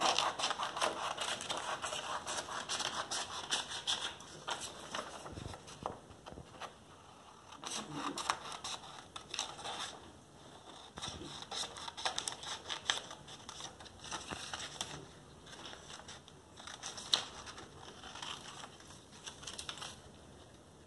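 Hand scissors cutting through a sheet of printed paper: many small snips in irregular runs, with the paper rustling and crinkling as it is turned.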